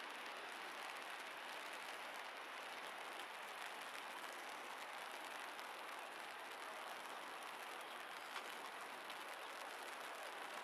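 Steady, even hiss of light drizzle falling on wet paving.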